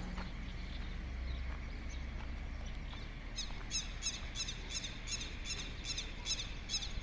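A bird chirping over and over, short falling chirps at a steady pace of about three a second, starting about three seconds in, over a low steady outdoor rumble.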